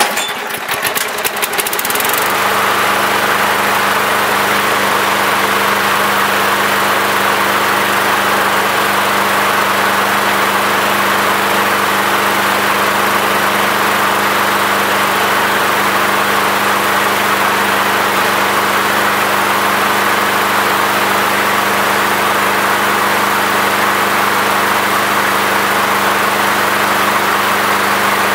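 Small walk-behind lawn mower engine starting: a couple of seconds of uneven clatter as it catches and comes up to speed, then running steadily at a constant speed.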